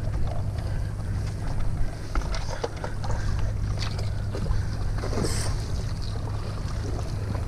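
Seashore ambience: a steady low rumble with water sounds and scattered light clicks.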